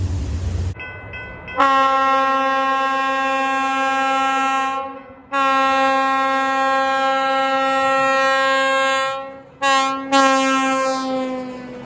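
Locomotive air horn sounding the grade-crossing pattern: two long blasts, one short, then a final long blast that sags slightly in pitch as it fades. A low rumble cuts off just before, followed by a few faint short high tones ahead of the first blast.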